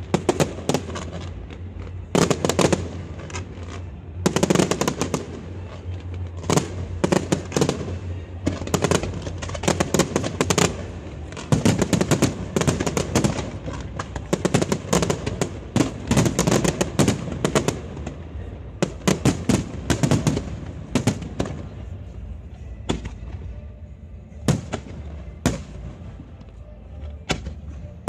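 Aerial fireworks display: shells bursting in rapid, overlapping bangs, thinning to a few single bangs over the last several seconds.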